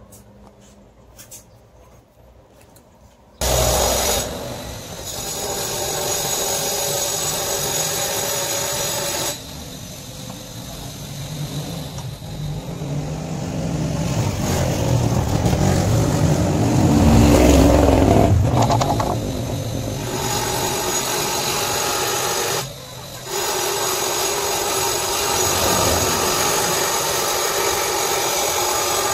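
A few light clicks of handlebar switch buttons, then a small power tool starts abruptly and runs steadily, pausing briefly twice.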